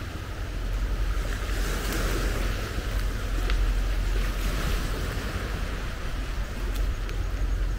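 Sea waves washing in, a hissing wash that swells and fades twice, over a steady low rumble of wind on the microphone.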